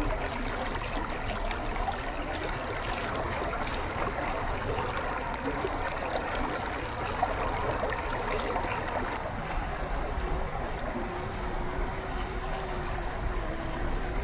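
Stream water running and splashing, with a faint steady whine in the last few seconds.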